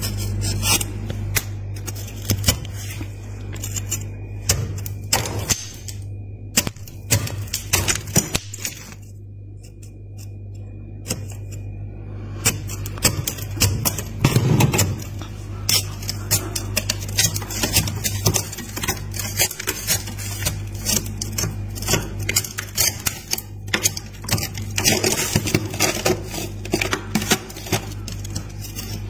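Metal scraper grating and crunching through thick freezer frost in rapid, irregular scrapes, over a steady low hum. The scraping eases off for a few seconds about a third of the way in, then picks up again.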